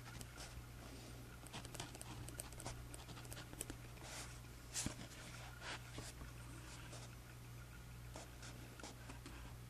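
Writing by hand on journal paper: a run of short, soft scratchy strokes, one louder stroke about five seconds in, over a faint steady electrical hum.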